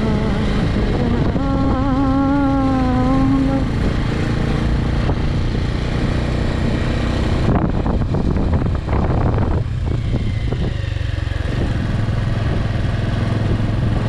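Motor vehicle engine running steadily on the move, a constant low hum. A wavering pitched tone sounds briefly a couple of seconds in, and a cluster of knocks and rattles comes just past the middle.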